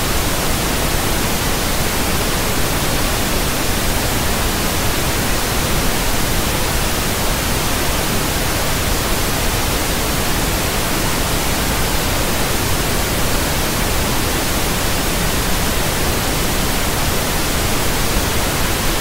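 Synthetic brown noise: a steady, unchanging rush of noise with no tones or events.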